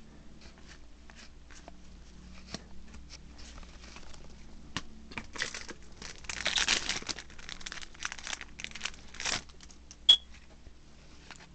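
Yu-Gi-Oh! Soul Fusion booster pack wrapper crinkling and being torn open by hand, the loudest stretch about halfway through, among small clicks and flicks of trading cards being handled. A single sharp click near the end.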